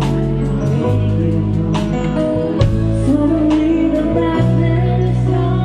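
Live band music: held bass notes under a wavering melody, with regular drum hits.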